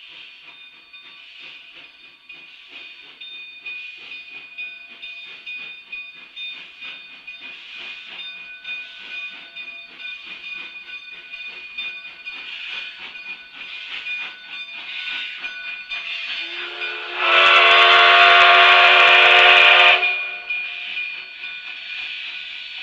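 Narrow-gauge steam locomotive pulling its passenger train out of the yard, its exhaust beating in a steady rhythm as it passes. About sixteen seconds in, its steam whistle gives one long blast of about three seconds: a brief rising note into a full chord, the loudest sound here.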